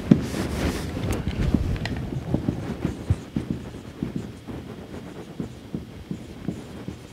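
Marker writing on a whiteboard: a run of short scratchy strokes and small taps over low, irregular rustling and knocking.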